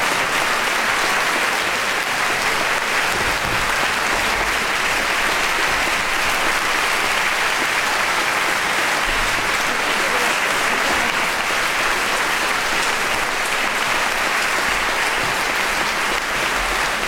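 Large audience applauding, steady and unbroken.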